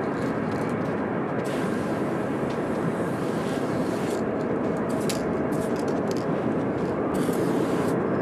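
Aerosol spray paint can hissing in bursts of about a second, three times, over a steady rushing background noise.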